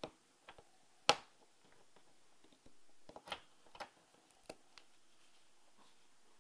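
Scattered small sharp clicks and taps of CR2016 coin-cell batteries and the plastic shell of an Isuzu Trooper key fob being handled as the new batteries are slid into place. The loudest click comes about a second in, with a few more from about three seconds on.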